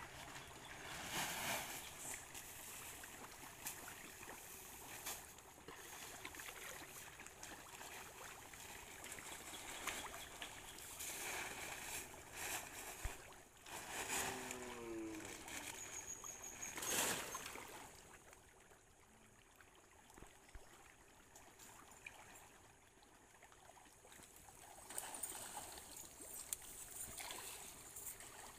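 Pellet feed scattered by hand onto a fish pond, with hybrid pangasius catfish splashing at the surface as they take it. Repeated bursts of splashing, quieter for several seconds past the middle.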